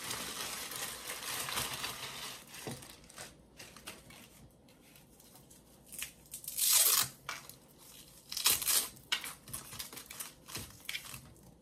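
Plastic packaging crinkling and tearing as it is pulled open: a steady rustle for the first few seconds, then several short bursts, the loudest about seven seconds in.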